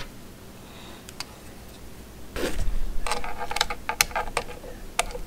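Handling a plastic handheld voltage tester: a brief rustle about two and a half seconds in, then a cluster of sharp small clicks and rattles of its plastic body and probe leads.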